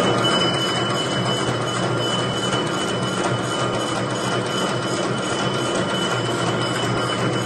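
ZT-299 double-twist barbed wire machine running steadily: the motor and twisting gear give a constant mechanical clatter, with a steady high whine over it.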